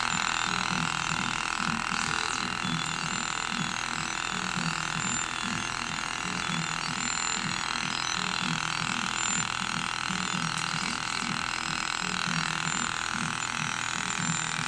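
3D printer running as it prints with ground PET flakes: a steady fan whir with a low, repeating pulsing from its motors as the print head moves.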